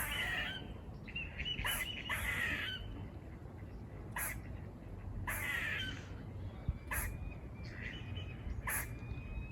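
Squirrel alarm calls: three harsh, raspy buzzing calls, with short sharp barks in between.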